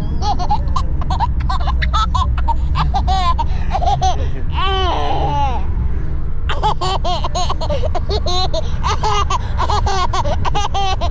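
Baby girl laughing in quick, high-pitched bursts, with a longer, louder squeal of laughter about five seconds in and a short pause after it, as she is played with. A steady low rumble runs underneath.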